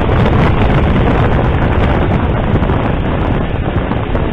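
Loud, steady rush of wind buffeting the microphone, mixed with road noise from a moving vehicle. No engine note or other distinct sound stands out.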